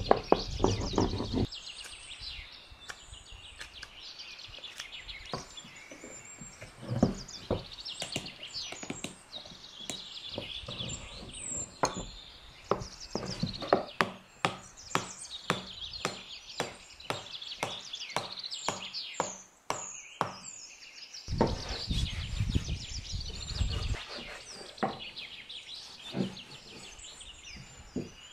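A knife cutting wood in a long run of sharp clicking strokes, with small birds chirping throughout. Brief rubbing noises near the start and again about three-quarters of the way through.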